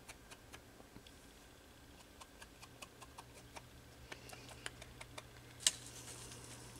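Fingertips and fingernails dabbing and tapping on embossed cardstock: faint, irregular light clicks, with one sharper click near the end. A faint steady low hum underneath.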